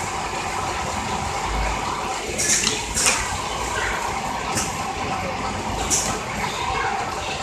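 Richpeace automatic template sewing machine with its auto loader running: a steady mechanical noise broken by four short, sharp hisses.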